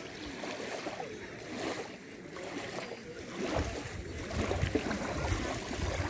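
Small lake waves lapping and splashing onto a gravelly shore. About halfway through, a low rumble of wind on the microphone joins in.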